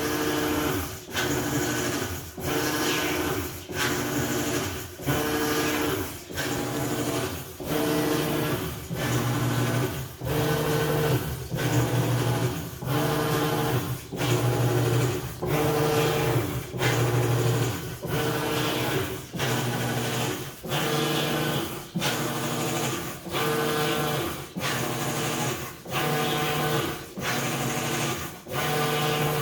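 Whirlpool WTW5000DW top-load washer agitating, with a loud humming mechanical noise on every agitator stroke. The noise breaks off briefly as the agitator reverses, about once a second, in an even rhythm.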